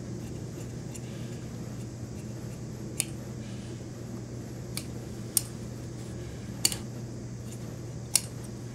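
Large tailor's shears cutting through suit lining cloth, the blades giving five sharp snips spread over the second half, over a steady low hum.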